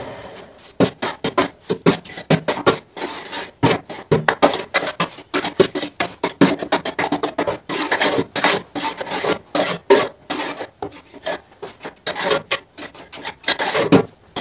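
Rapid, irregular scraping and knocking strokes, several a second, on the steel mould of a cinder-block making machine.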